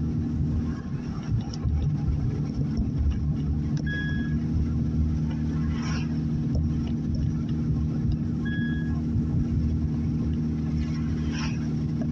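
Steady engine and road noise heard from inside a moving car, a low rumble with a hum. A short high tone repeats about every four and a half seconds, and there are brief jolts about halfway through and near the end.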